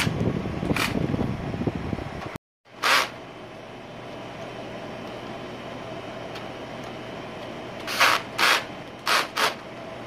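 Cordless drill-driver whirring in short bursts as it drives screws into an air conditioner's control board housing: one burst about three seconds in and four quick ones near the end. Before that, a steady noisy hum runs for a couple of seconds and cuts off abruptly.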